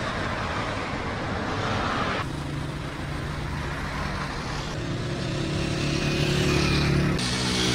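Road traffic on a city avenue: cars and motorbikes driving past, with one engine's hum growing louder in the second half. The sound changes abruptly twice where the shots cut.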